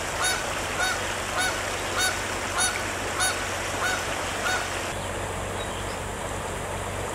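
A bird calling over and over, about nine evenly spaced calls a little more than half a second apart that stop about four and a half seconds in, over the steady rush of creek water.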